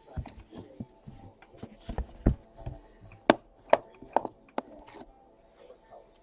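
A string of knocks and sharp clicks as the card box and its packaging are handled on a tabletop: a few low thumps in the first half, then four loud sharp clicks close together near the middle.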